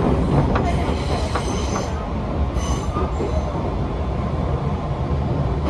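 Train running on the JR Kansai Main Line, heard from inside the carriage: a steady low rumble with a few wheel clicks, and brief high-pitched wheel squeals about one and a half and two and a half seconds in.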